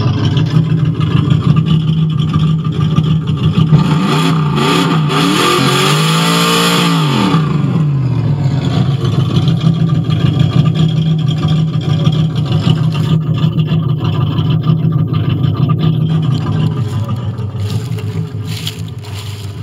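1972 Volkswagen Super Beetle's air-cooled flat-four engine idling. About four seconds in it is revved once and falls back to idle by about eight seconds, then idles steadily.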